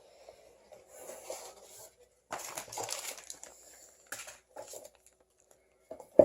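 Rustling and crinkling of packaging being handled, in irregular bursts, with a single sharp knock near the end.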